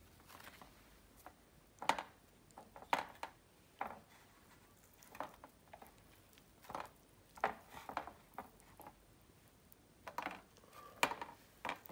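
Someone eating chicken karahi by hand off a steel plate: about a dozen short, faint clicks and smacks scattered irregularly, from chewing and fingers on the plate.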